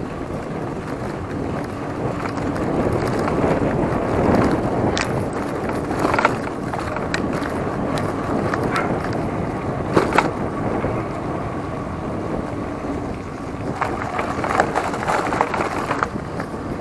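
Giant Talon 3 hardtail mountain bike being ridden on a trail: steady wind rush on the microphone and tyre noise, broken by sharp clattering knocks of the bike over bumps, a few scattered and a cluster near the end.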